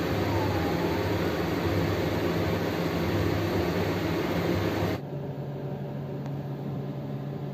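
Steady mechanical hum and whirr with a low drone underneath. About five seconds in, it drops abruptly to a quieter steady hiss.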